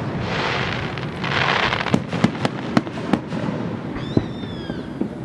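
Aerial fireworks going off: two spells of hissing crackle, then a quick string of sharp bangs, with one more bang and a short falling whistle about four seconds in.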